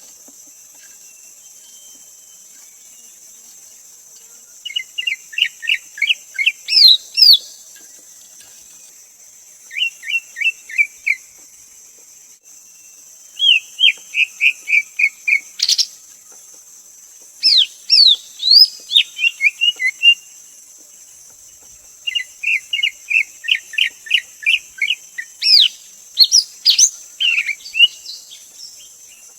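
Greater green leafbird singing in bouts of quick chattering notes mixed with high swooping whistles, each bout lasting one to three seconds with short pauses between. A steady high hiss runs underneath.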